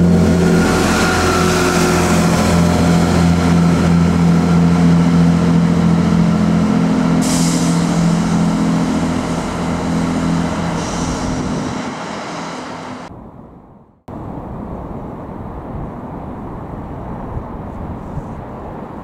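Diesel engine drone of a GWR Networker Turbo diesel multiple unit, a steady hum with several fixed low tones that fades over a few seconds. It breaks off suddenly about two-thirds of the way through, leaving a much quieter steady outdoor hiss.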